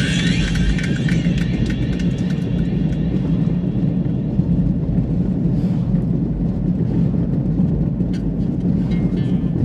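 Steady low road and engine rumble heard from inside a moving car's cabin. Music is faintly heard fading out over the first couple of seconds and comes back near the end.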